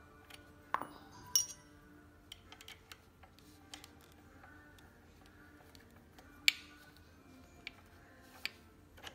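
Metal clicks and clinks as hex keys turn and tap in two screws through a scooter's metal folding latch, a handful of scattered sharp clicks, the loudest about six and a half seconds in.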